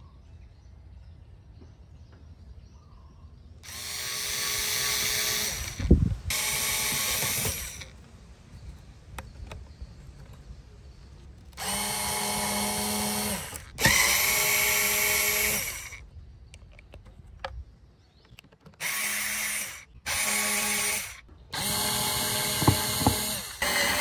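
Electric screwdriver backing rusted screws out of a metal amplifier case. It runs in repeated bursts of one to two seconds, each a steady motor whine, with a sharp knock now and then.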